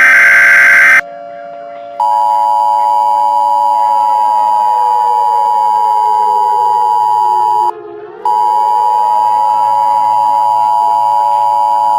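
Emergency Alert System-style broadcast tones. A loud warbling data burst ends about a second in. After a short gap, a steady electronic two-tone attention signal begins, with lower tones under it that slide slowly down and back up, and it cuts out briefly about eight seconds in.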